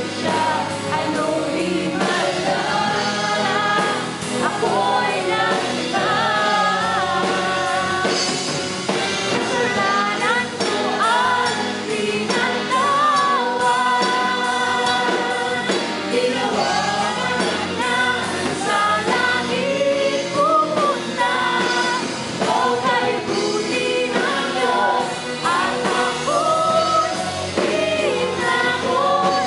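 Live Christian worship band playing a Tagalog praise song: female and male singers into microphones over electric guitar and drums.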